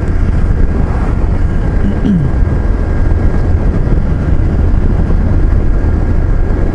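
Steady wind noise buffeting the microphone of a moving motorcycle, with the engine running beneath it. A short falling tone comes about two seconds in.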